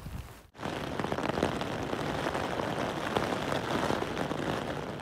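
Heavy rain falling, a dense steady patter of many drops that starts abruptly about half a second in.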